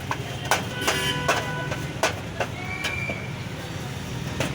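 Steady low rumble of traffic, with several sharp clinks and knocks scattered through it and a short high-pitched tone about three seconds in.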